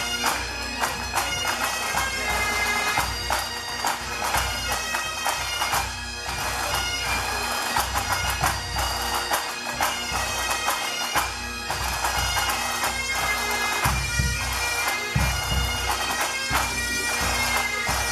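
Pipe band playing: Highland bagpipes carry a melody over their steady drones, with snare and bass drums beating under it.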